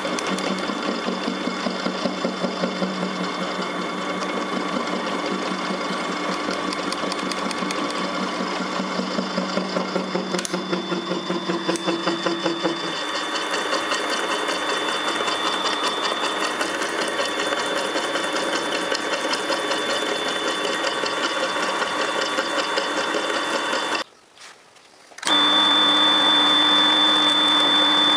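Small milling machine running, its end mill cutting a metal bar held in the vise, with a steady high whine. The sound cuts out for about a second near the end, then comes back louder.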